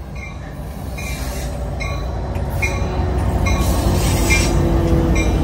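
Doubleheaded EMD F59PHI diesel-electric locomotives arriving, their rumble growing louder as they draw alongside. A bell rings a little under once a second, and there is a faint squeal from wheels or brakes midway.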